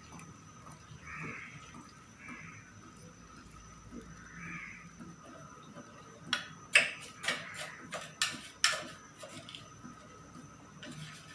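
Kitchen clatter while cooking: a quick run of about six sharp clicks and knocks over some two seconds, a little past the middle.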